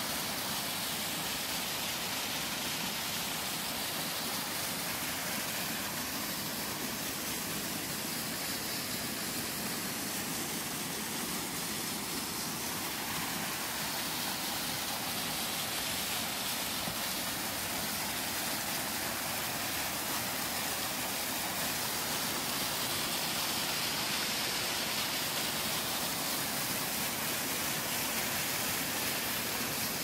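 Steady rush of running water from a mountain stream and waterfall, an even hiss-like noise with no break.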